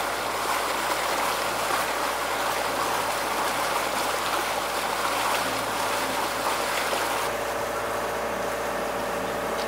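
Steady rush and splash of water. About seven seconds in, the water sound eases and a steady engine hum joins in.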